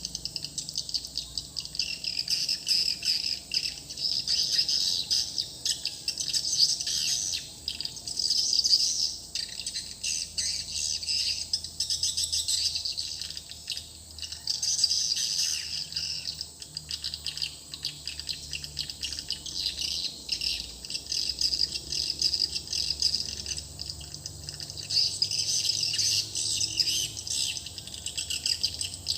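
Swiftlet calls: a dense, continuous high twittering that swells and fades every few seconds.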